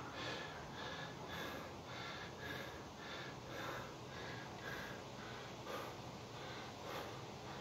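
A person breathing hard, winded from kettlebell exercise: quick, faint, even breaths, about three every two seconds.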